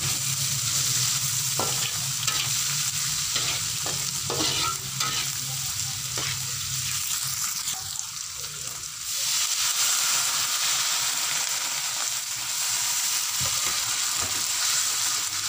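Anchovies, green chilies and tomato sizzling as they are stir-fried in a wok, a spatula scraping and knocking against the pan now and then.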